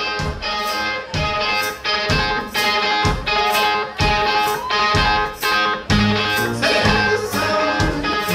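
Live indie rock band playing: electric guitar over a steady drum beat, with low bass notes coming in about six seconds in.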